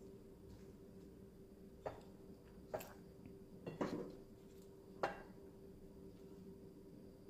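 Four light knocks and clicks of kitchenware as chicken pieces are set by hand onto rice in a pan, the last one the loudest, over a steady low hum.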